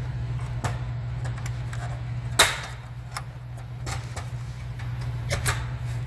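Plastic clips of a Toshiba 17.3-inch laptop's bottom cover snapping loose one after another as the cover is pried off. There are several sharp clicks, and one loud snap about two and a half seconds in, over a steady low hum.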